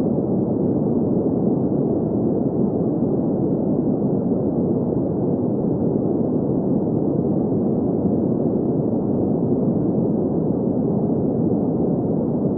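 Steady green noise: an even, unchanging hiss centred in the low-middle range, with little above about 2 kHz.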